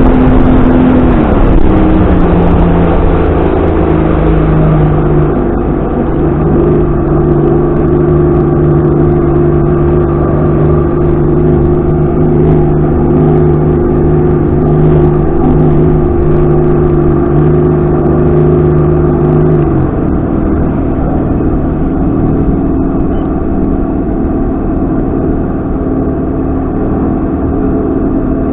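Outboard motor running: its speed drops in the first couple of seconds and then holds steady, and about twenty seconds in its note shifts lower again.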